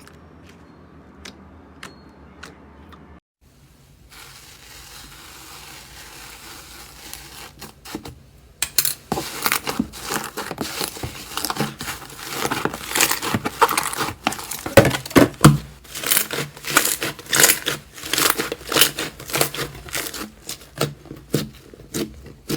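Slime being handled by hand. A few faint ticks at first, then after about eight seconds a loud run of dense, irregular crackles and pops as the slime is squeezed and pulled.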